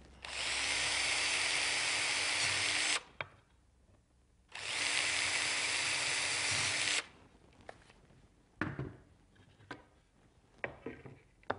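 Cordless drill with a twist bit boring through the plastic base of an old push pad, in two steady runs of about three and two and a half seconds. A few short knocks follow near the end.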